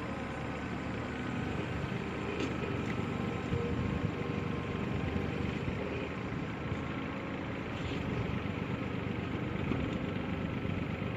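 Backhoe's diesel engine running steadily, with a couple of faint clicks about two and a half seconds and eight seconds in.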